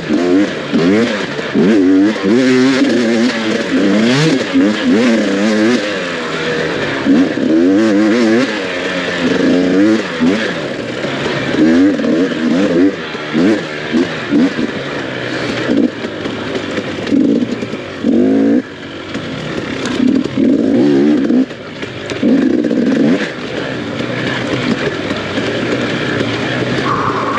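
Enduro dirt bike engine revving hard and easing off over and over, its pitch climbing and dropping every second or two as the throttle is worked.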